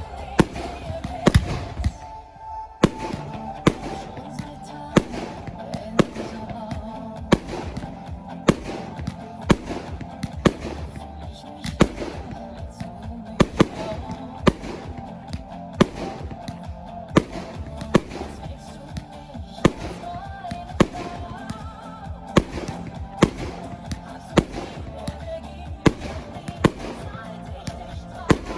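Fireworks display: sharp bangs of shells bursting, irregularly, about one or two a second, with a pop song playing over them.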